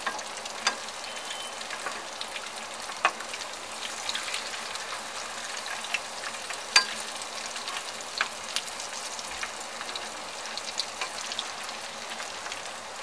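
Mutton chops shallow-frying in hot mustard oil in a kadhai: a steady sizzle with scattered sharp pops and clicks, and the spatula scraping as the chops are turned over.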